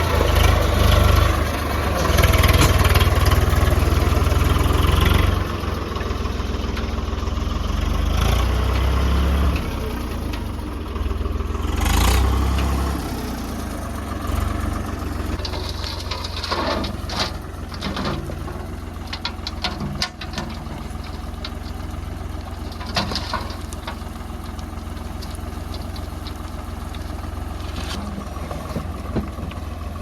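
Heavy diesel engine running. It is loud and rumbling for the first dozen seconds, then settles to a steadier, quieter run with scattered metallic clanks.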